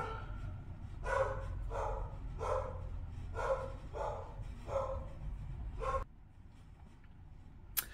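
A dog barking in a steady series, about eight barks roughly two-thirds of a second apart, stopping about six seconds in.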